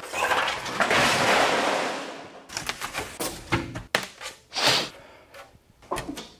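A roof panel and pink rigid foam insulation boards being pulled off a camper roof frame. First a long scraping slide fades out over about two seconds, then a run of scattered light knocks and rustles as the foam boards are lifted and tossed.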